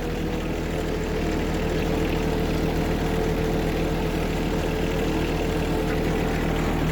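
John Deere 1023E compact tractor's three-cylinder diesel engine running steadily at a constant speed.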